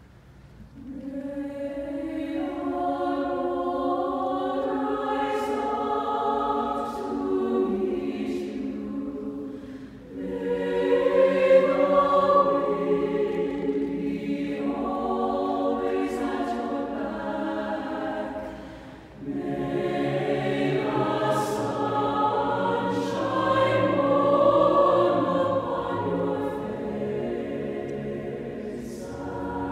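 A choir singing sustained chords in long phrases, breaking briefly about ten and nineteen seconds in.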